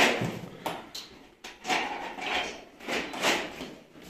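Cardboard cartons and packing being handled while air-conditioner units are unpacked: a series of short scraping and rustling sounds with a few light knocks.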